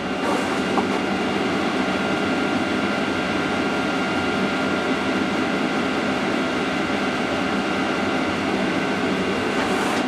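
Diesel air heater and a 12 V radial turbo blower fan running steadily: an even whirring with a few faint, steady high whines.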